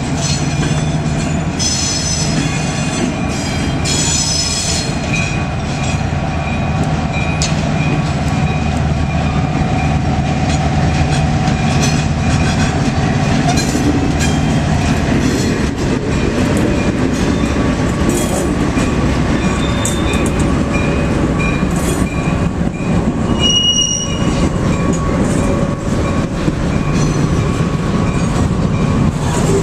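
An EMD SW1500 switcher's 12-cylinder diesel engine running steadily as it passes at slow speed, fading after about fifteen seconds. Freight cars then roll by, with wheels squealing on the curve, a sharper squeal around 24 seconds in, and clicking over rail joints.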